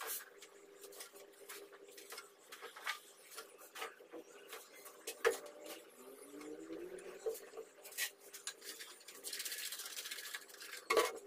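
Hands crumbling and working loose soil in a wooden frame, with soft rubbing and scattered small clicks of clods. Near the end a hand-trigger spray bottle hisses in quick squirts as it mists water over the soil.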